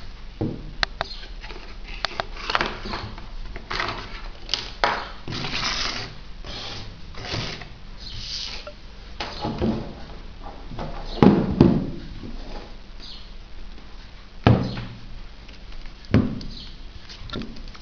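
Hands unpacking a small speaker: irregular rustling of its plastic wrap and cardboard box, with clicks and knocks. The loudest are two knocks close together about two-thirds of the way through, followed by a couple of single ones.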